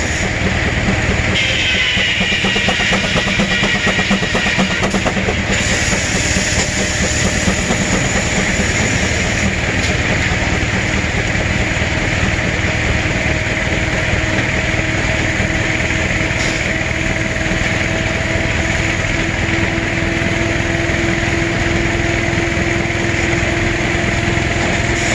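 Advance-Rumely steam traction engine belt-driving a sawmill, its exhaust beating in a fast, steady rhythm with the mill running. Over the second half a whine rises slowly in pitch.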